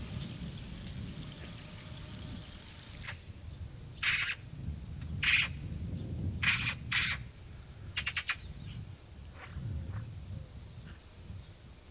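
Crickets chirping in a fast, even pulse. A high hiss sounds for the first three seconds and cuts off suddenly, and several short, sharp noises come between about four and eight seconds in.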